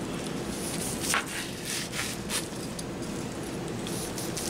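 Long slicing knife drawn back and forth through a thick, crusty seared bone-in rib-eye steak on a plastic cutting board, giving a few short, soft scraping strokes over a steady background hiss.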